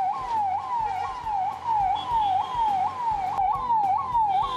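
Police car siren in a fast electronic yelp, repeating about twice a second: each cycle jumps up sharply, then slides down.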